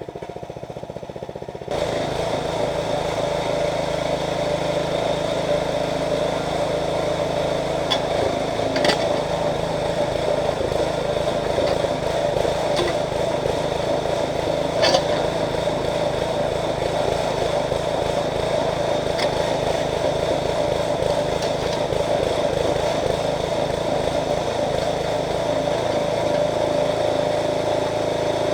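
Small gasoline engine of a towable backhoe, driving its hydraulic pump. It runs at a lower speed, steps up about two seconds in, then holds a steady pace. A few sharp knocks come through it while the machine digs.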